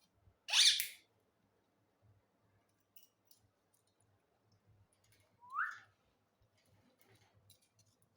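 Parrot vocalising twice: a short, harsh, noisy call about half a second in, then a brief rising whistled squeak about five and a half seconds in.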